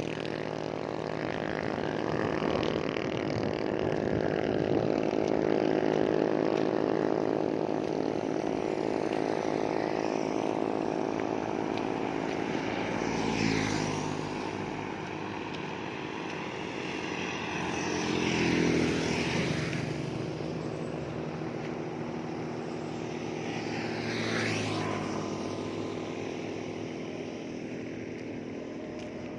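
Steady engine drone of road traffic, with three motor vehicles passing close by, each one's pitch dropping as it goes past: about halfway through, two-thirds of the way in, and near the end.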